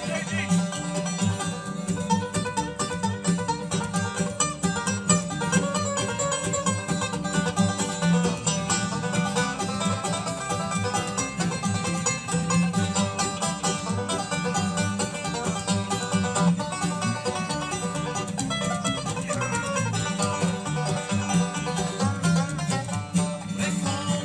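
Bluegrass band playing live, a steady run of plucked string notes over a walking bass with no singing.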